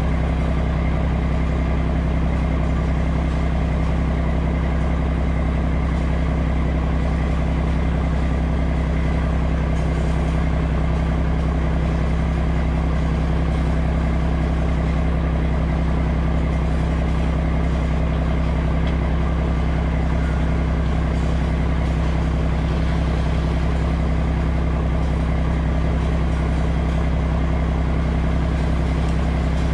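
Heavy diesel truck engine running steadily at a constant speed while a dump trailer's bed is raised on its hydraulic cylinder to unload.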